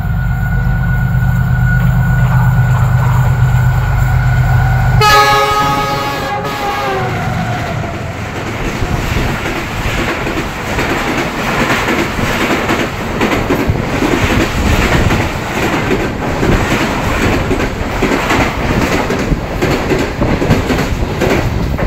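A Pakistan Railways GEU diesel locomotive hauling an express passenger train through a station at speed, engine drone and horn loud on the approach. About five seconds in, the horn's chord drops in pitch as the locomotive passes. The coaches then rush by, their wheels clattering rhythmically over the rail joints.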